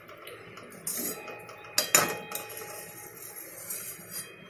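Perforated metal skimmer clinking and scraping against an aluminium kadai of boiling sugar syrup while the cardamom pods are scooped out, with a few sharp knocks, the loudest about two seconds in.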